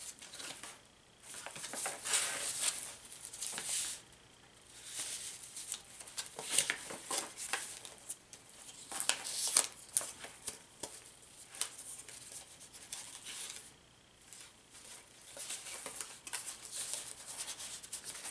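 Pages of a thick handmade paper junk journal being turned and handled: irregular paper rustling and crinkling with light taps and clicks, pausing briefly a few times.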